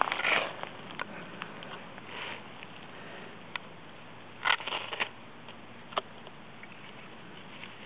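Ferrocerium rod being struck with a steel striker over a tinder bundle of pine needles and dry leaves: a few short, sharp scrapes, the loudest near the start and about halfway through, with single clicks between. The sparks are catching the tinder.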